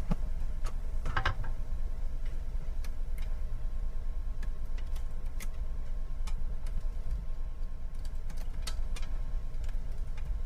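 Light, irregular clicks and taps of wires being handled and worked into a solar charge controller's terminal lugs, over a low steady hum.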